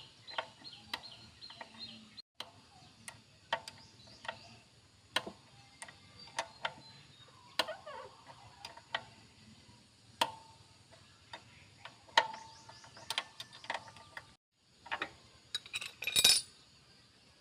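Irregular metallic clicks and clinks of hand tools and small metal parts being handled while a motorbike is stripped down, some strikes ringing briefly, with a louder clatter near the end.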